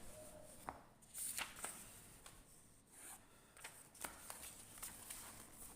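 Faint handling noise: about a dozen short, scattered rustles and light taps, such as paper or a pen being handled.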